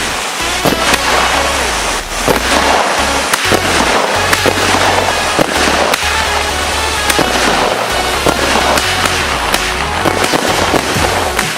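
Multi-shot firework cake firing, a rapid run of sharp bangs and crackling pops. Background music with a steady bass line plays under it.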